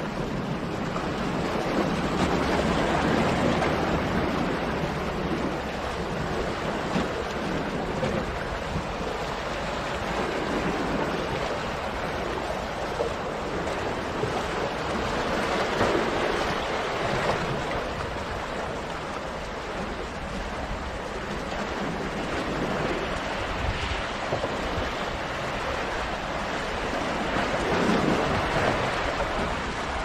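Black Sea waves washing in and breaking against a shore of large boulders, a steady rush of surf that swells louder a few times as bigger waves hit the rocks.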